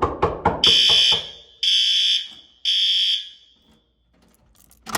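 An apartment smoke alarm sounding under test: three loud, high, single-pitched beeps, each a bit under a second, in the three-pulse fire evacuation pattern, which shows the detector has tripped. A few quick knocks come just before it.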